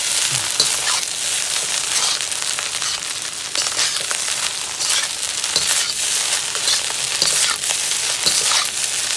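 Egg fried rice sizzling in a hot wok while a metal spatula stirs and tosses it. The spatula scrapes against the pan about once or twice a second over a steady frying hiss.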